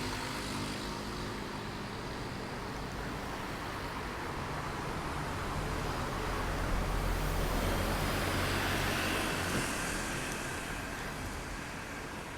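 Road traffic: a steady rush of vehicles, with one passing close that swells and fades over the middle of the stretch.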